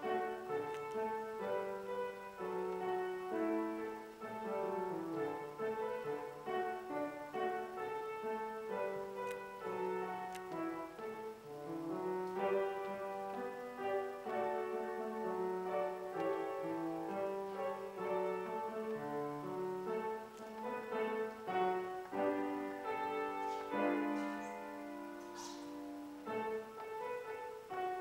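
Upright piano played solo: a continuous stream of notes, with a lower line moving beneath the melody.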